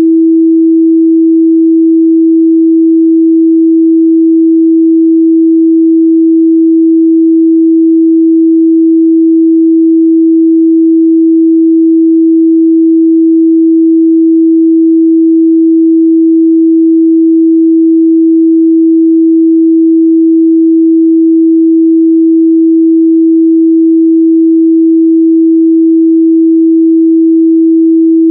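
Pure 326 Hz sine-wave test tone, one steady unchanging pitch held without a break.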